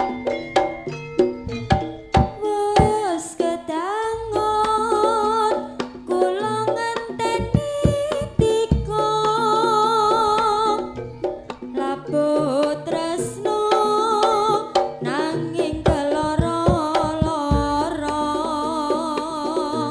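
Javanese jaranan ensemble music: sharp hand-drum strokes and percussion under a wavering melody line with heavy vibrato that comes and goes.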